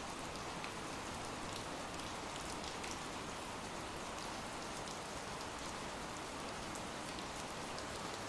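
Ambient rain track: steady rain falling, an even hiss with faint drop ticks scattered through it.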